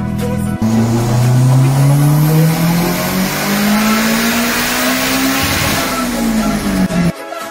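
Toyota Vios's four-cylinder engine revving hard, its pitch climbing steadily for about five seconds up to high rpm, then the revs falling away before the sound cuts off suddenly.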